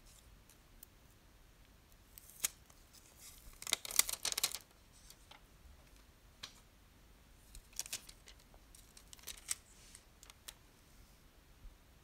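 Crackling and rustling of a clear plastic sticker being peeled off its backing sheet and handled between the fingers, with scattered small clicks. It comes in short spells, loudest about four seconds in, with a second, weaker flurry around eight to nine seconds.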